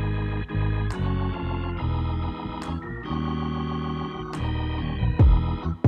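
Background music: sustained organ-like keyboard chords changing every half second or so, with a couple of drum hits near the end.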